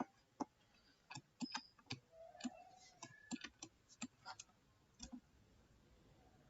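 Faint, irregular clicks of a computer mouse and keyboard, about a dozen over five seconds, then stopping.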